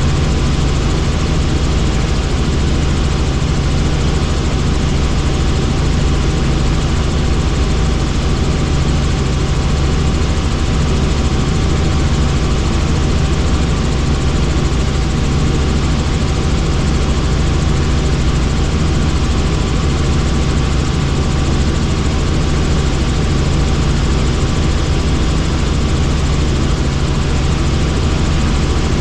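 Helicopter in flight: steady, loud rotor and engine noise with a deep constant rumble and a thin steady whine over it.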